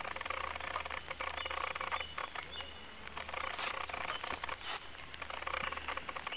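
Outdoor background of birds calling, with a few short high chirps over a steady low rumble.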